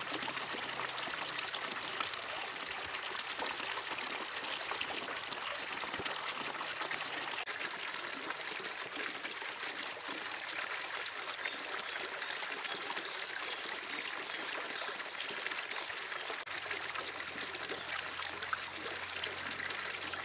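Shallow, rocky stream flowing over and around stones, giving a steady, even sound of running water.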